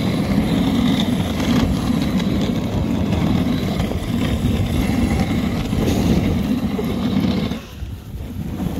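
Dog sled running fast on packed snow with the brake on: a steady, rough rushing scrape of runners and brake dragging through the snow, mixed with wind on the microphone. It drops away sharply about seven and a half seconds in.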